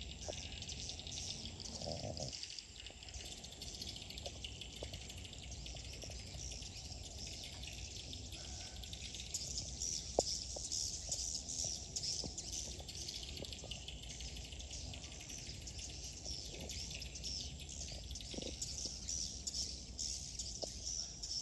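Many swiftlets twittering: a dense, continuous chatter of short high chirps, fuller in the second half, over a steady low rumble.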